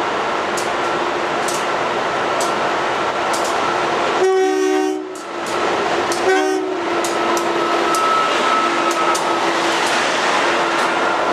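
A train running through the station with a steady rushing roar and faint clicks of the wheels. Its multi-tone horn sounds twice about four seconds in: a longer blast, then a shorter one.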